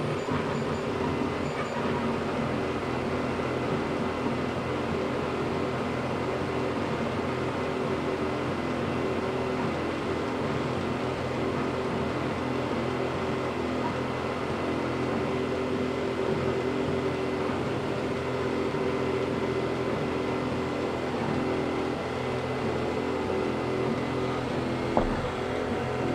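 Steadytech Mini 3D printer printing: its stepper motors whine in tones that change pitch every second or so as the head moves, over a steady fan hum.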